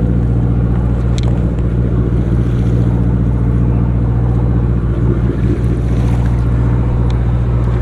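A sportfishing boat's engine running steadily, a constant low hum, with a couple of faint clicks about a second in and near the end.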